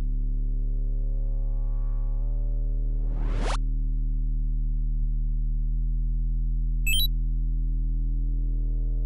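Synthesizer music of sustained low chords that change every few seconds, with a rising whoosh about three seconds in and a quick run of high electronic chirps about seven seconds in.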